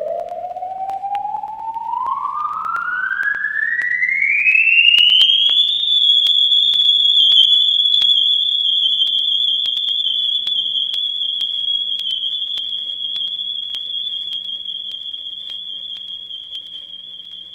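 A science-fiction sound effect from a vinyl sound-effects record: one siren-like tone glides steadily upward for about six seconds, then holds a high, steady whistle that slowly fades. Scattered clicks from the record surface and a faint low hum run underneath.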